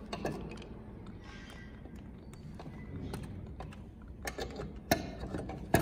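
Scattered small clicks and knocks of a screw, plastic clip and bracket being handled and set in by hand while fitting a valance bracket, with two sharper clicks near the end.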